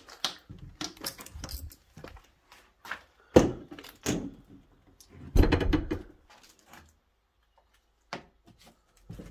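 Footsteps and scattered knocks and thuds as someone walks across a debris-strewn floor, with two heavier thumps about three and a half and five and a half seconds in.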